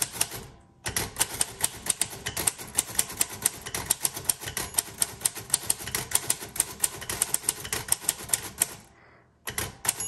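1936 Royal Model O portable typewriter being typed on in a fast, even run of key strikes as the carriage steps along. The typing starts just under a second in, stops briefly about nine seconds in, then resumes.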